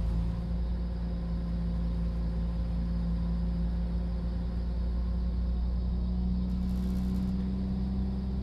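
Class 172 Turbostar's underfloor MTU diesel engine running under power, heard inside the carriage over the rumble of the wheels on the track. It holds a steady note that climbs a little about two-thirds of the way through as the unit picks up speed.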